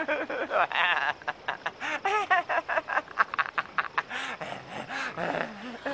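A man's harsh, rapid cackling laughter, stuttering several times a second with its pitch rising and falling.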